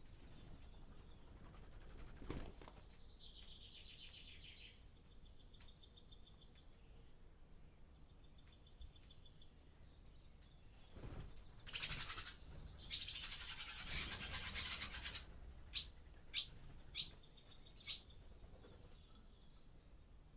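Barn swallows twittering and chattering, with strings of clear high notes at first, then loud, harsh, buzzy rattles about halfway through, followed by a few sharp clipped calls.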